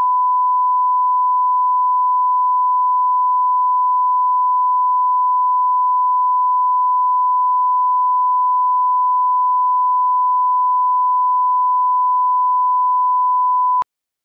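Broadcast test tone, the steady pure beep that plays with SMPTE colour bars, held at one pitch and cutting off suddenly near the end.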